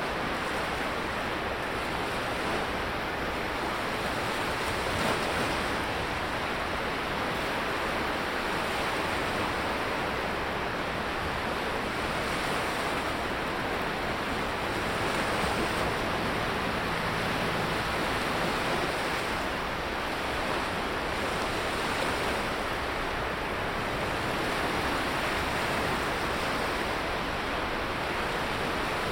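Sea waves breaking on a beach: a steady wash of surf that swells and eases gently.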